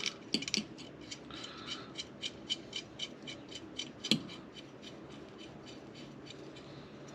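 Light metallic clicks at an even pace of about three a second, with one louder knock about four seconds in. The clicks stop shortly before the end. This is small metal work on a transmission being put back together.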